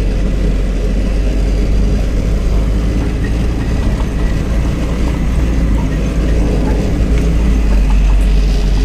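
Loud, steady low rumble of a goods truck's diesel engine and cab as the truck rolls slowly.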